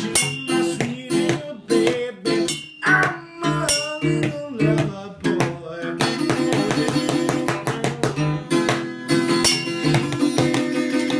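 Acoustic guitar played by hand: separate strummed chords with short gaps for the first few seconds, then fast, continuous strumming from about six seconds in. A man's voice sings along early on.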